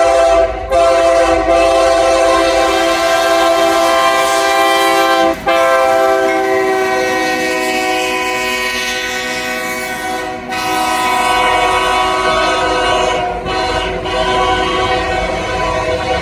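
Freight locomotive's multi-note air horn sounding a chord in a series of blasts, several seconds each, separated by brief breaks. A low rumble of the passing train rises near the end.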